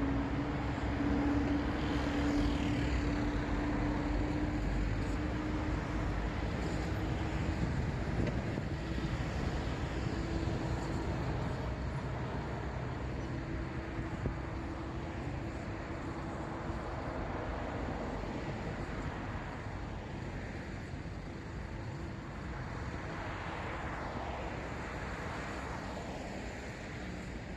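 City road traffic: a continuous rumble of cars going by, with a few passing vehicles swelling up and fading. A steady engine hum runs through the first half and fades out about halfway through.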